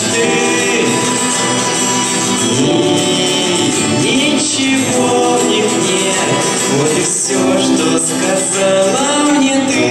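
A young man singing a song into a microphone, accompanied by two acoustic guitars, amplified through the hall's sound system.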